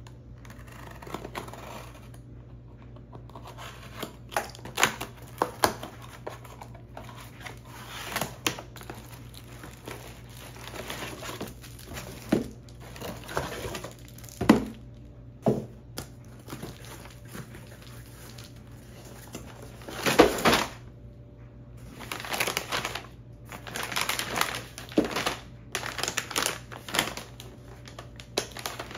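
Packaging handled by hand during an unboxing: plastic wrap and plastic pouches crinkling and rustling, cardboard box parts and items knocking on a table. The sound comes in irregular bursts, with the sharpest knocks about 14 and 20 seconds in and a busy stretch of crinkling near the end.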